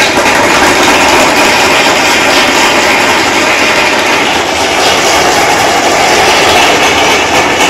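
Audience applauding steadily, a dense even clapping that holds through the whole stretch.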